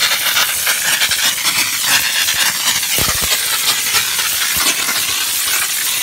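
Steam gun of an LPG-fired 12-bar steam car washer jetting steam, a loud steady hiss with a constant pa-da pa-da spatter of water. The spatter comes from the dryness control being set to its wettest, so the steam carries more water; it is not a sign of unstable steam.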